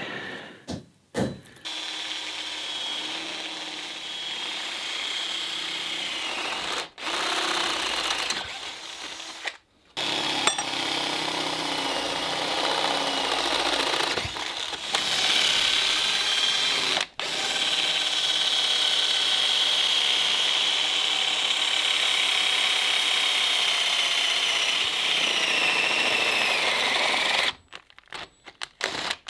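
Handheld electric power tool running with a steady motor whine, in several stretches broken by abrupt stops, on steel in a forge workshop.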